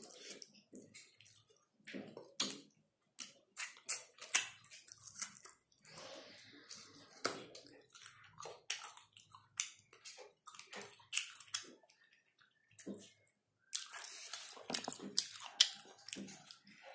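Close-mic'd wet chewing and lip-smacking of a person eating with their fingers: many sharp, irregular smacks and clicks, several a second.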